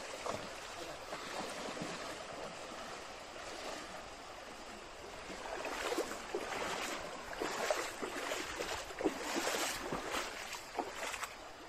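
Footsteps wading through a shallow stream, with irregular splashes of water over the stream's running water; the splashing comes thicker in the second half.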